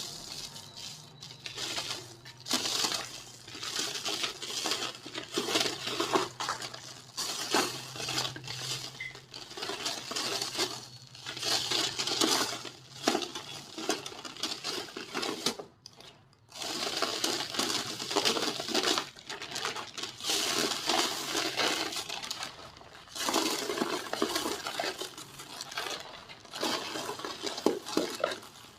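Dried white cement shapes crumbling and breaking apart. The crisp crackling and crunching comes in bursts, with a short pause a little past halfway.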